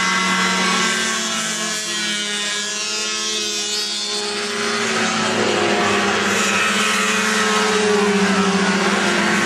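Several two-stroke snowmobiles racing past at high revs, their engines overlapping in a steady held note, with the pitches of individual sleds shifting as they go by.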